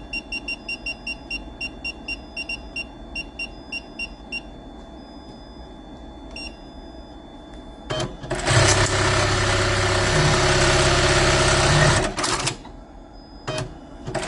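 Quick run of short electronic key beeps from the control panel of a Juki LBH-1790S computer-controlled buttonhole sewing machine, several a second. About eight seconds in, the machine runs loudly and steadily, sewing a buttonhole for about four seconds. It stops, blips briefly, and starts again at the very end.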